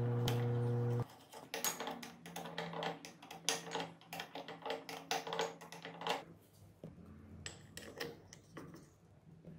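A loud steady hum cuts off about a second in; then metal clutch parts click, clink and tap rapidly as the clutch plates and pressure plate are handled and fitted into a Bajaj three-wheeler engine's clutch basket, the clicks thinning out after about six seconds.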